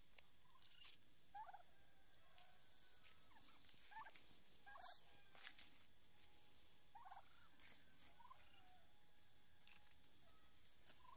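Domestic turkeys calling faintly: short, soft calls every second or so, heard among a few light clicks and a faint high hiss.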